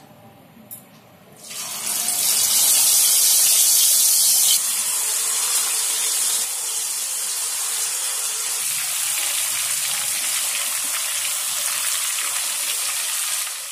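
Marinated chicken drumsticks deep-frying in hot oil in a kadai. The sizzle breaks out about a second and a half in as a leg goes into the oil, is loudest for the next few seconds, then settles into a steady, slightly quieter sizzle.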